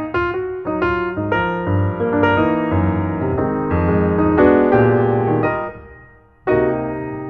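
Background piano music, a flowing melody of struck notes; it dies away about six seconds in and a new phrase starts half a second later.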